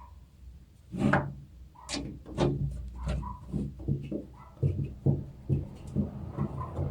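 Irregular knocks and clicks from a power supply and its screws being handled and fitted into a PC case, about a dozen sharp strikes starting about a second in.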